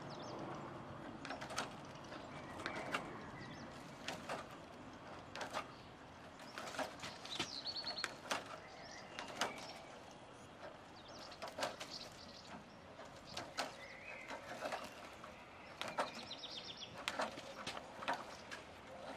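Irregular small metallic clicks and rustles of hexagonal wire mesh being worked with side-cutting pliers, with birds chirping now and then in the background.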